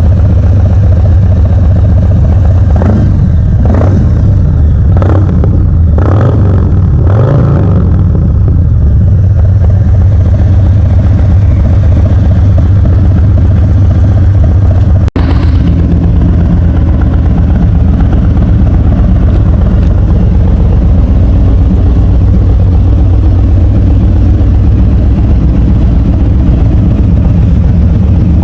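Harley-Davidson Low Rider S's Milwaukee-Eight 117 V-twin running loud through a Bassani 2-into-1 Shorty Ripper exhaust. It gives about five quick throttle blips a few seconds in, then settles into a steady idle.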